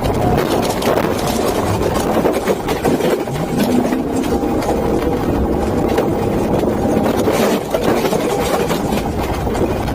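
Steady, loud engine noise from a vehicle.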